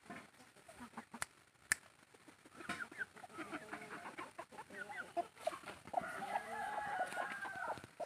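Chickens clucking in a string of short calls, ending in one longer drawn-out call, with two sharp taps about a second in before the clucking starts.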